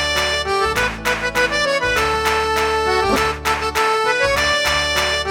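Instrumental children's-song music: an accordion-like lead melody over a steady bass and beat.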